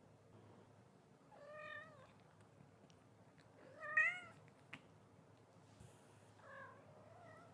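Cat meowing three times: short calls that rise and fall in pitch, about two and a half seconds apart, the middle one loudest.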